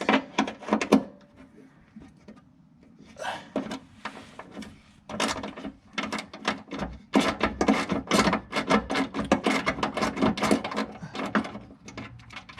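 Hand tools working on the 13mm bolts that hold a VW Beetle's bumper stay: runs of rapid metallic clicking and clanking, in several bursts with short pauses, as the bolts are loosened.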